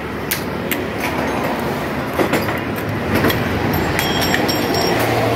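Pneumatic impact wrench rattling as it works on motorcycle engine bolts, over a steady low hum, with several sharp metallic clinks of tools and bolts.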